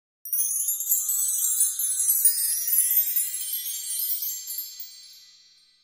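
Shimmering, tinkling chime sound effect, a high glittery cascade that starts abruptly and dies away slowly near the end.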